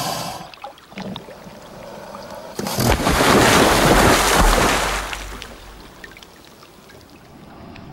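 Water splashing as a crocodile thrashes at the surface: a loud churning splash starts about two and a half seconds in, lasts a couple of seconds and then dies away.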